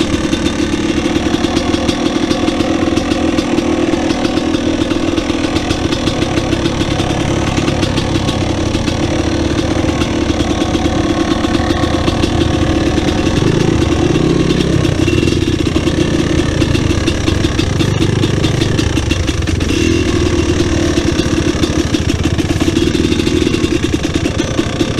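Dirt bike engine idling steadily with a rapid even beat, its note shifting briefly around the middle.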